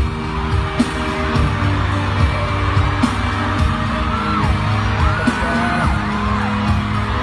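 Pop music with singing voices, loud and continuous.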